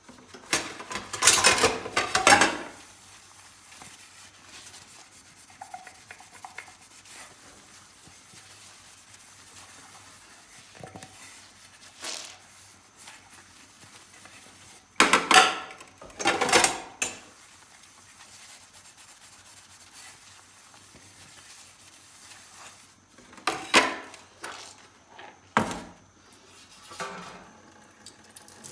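Dishes being scrubbed with a soapy sponge, with clinks of dishes and cutlery. Quiet rubbing throughout, broken by three louder spells of scrubbing and clatter: about a second in, around halfway, and near the end.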